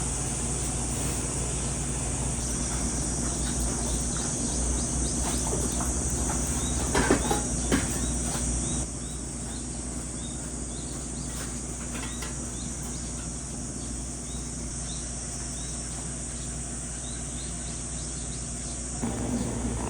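Outdoor ambience of insects chirring, a steady high drone, with short chirps repeating every fraction of a second. A few sharp knocks come about seven seconds in, and the background drops a little near nine seconds.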